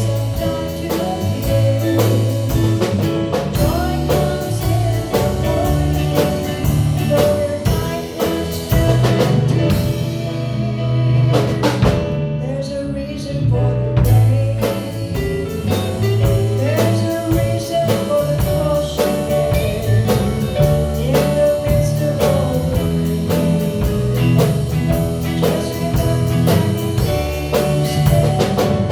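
Live gospel song: a woman singing over a band with drum kit, the music running on with a slightly thinner stretch about halfway through.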